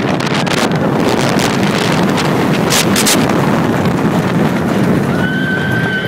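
Wind rushing hard over the microphone and the steel roller coaster train running on its track at speed, with a rider's long, high scream about five seconds in.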